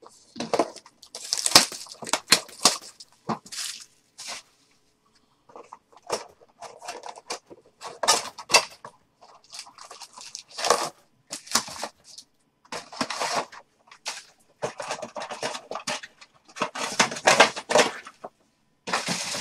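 A box of Panini Phoenix football trading cards being opened and its packs unwrapped. The plastic and foil wrappers crinkle and tear and the cardboard is handled, in a string of short rustling bursts with brief pauses.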